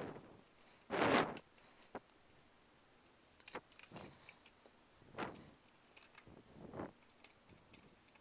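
Handling noise from small screws going back into a plastic VHS cassette shell: scattered clicks, taps and short scrapes, the loudest about a second in.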